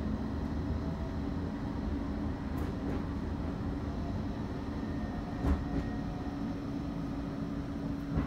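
Cabin running noise of a Bombardier Flexity 2 tram on the move: a steady low rumble with a steady hum. A single knock comes about five and a half seconds in.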